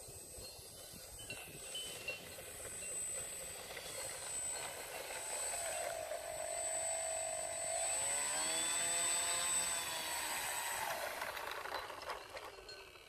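Electric motor and propeller of a Multiplex PC-6 Porter foam model plane whining as it taxis over grass, the pitch rising and falling with the throttle. It grows louder as the model comes close, then winds down near the end.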